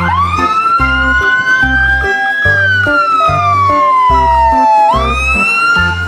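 Ambulance siren wailing: its pitch climbs for about two seconds, falls slowly, then climbs again about five seconds in. Background music with a steady beat plays underneath.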